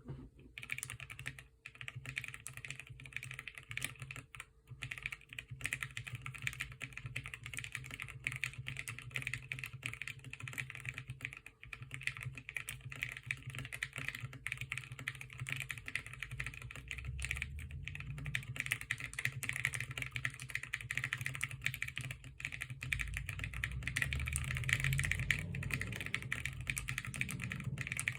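Continuous typing on a custom 60% mechanical keyboard: o-ring-mounted Bakeneko60 case, FR4 plate, PBT Cherry-profile keycaps and lubed linear frankenswitches (Gateron Ink Red bottom housings and springs, Gateron Yellow milky top housings, UHMWPE stems). Rapid key strokes without tactile clicks, growing louder with deeper thuds from about halfway through.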